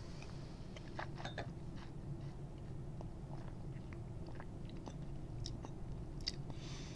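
Faint wet mouth clicks and lip smacks, scattered and irregular, as a mouthful of wine is held and worked around the palate during tasting, over a low steady room hum.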